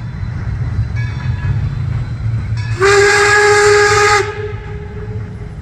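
Steam whistle of Baldwin Locomotive Works No. 26, an 0-6-0 switcher, sounding one blast of about a second and a half that slides up slightly in pitch as it opens, over the steady low rumble of the moving train. A second short blast starts at the very end.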